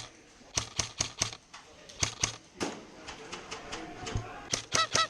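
Airsoft guns firing in short bursts of sharp snapping shots, with a brief high-pitched call near the end.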